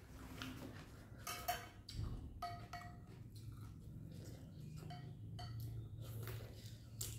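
Metal spoon and chopsticks clinking against a glass bowl of noodle soup: a scattered series of light clinks, each with a brief ring.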